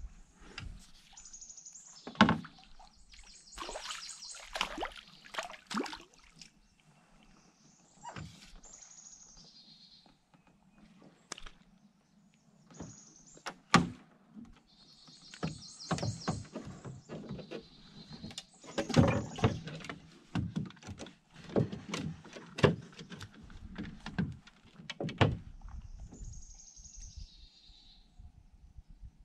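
Irregular knocks and thumps of handling in a small fishing boat, the sharpest about two seconds in, about fourteen seconds in, and several more later on. A bird sings short high trilled phrases every few seconds.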